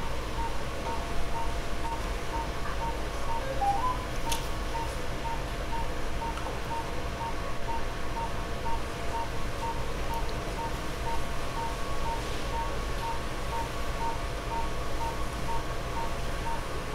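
Operating-room patient monitor beeping in time with the pulse: a short beep of one steady pitch about two and a half times a second, over a faint steady equipment hum. A light clink of a surgical instrument about four seconds in.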